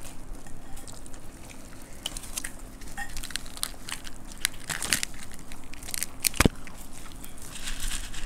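Crunching and crackling as dry puffed rice (murmura) and crisp puris and samosas are scooped up by hand and bitten, with chewing. One sharper, louder click comes a little after six seconds in.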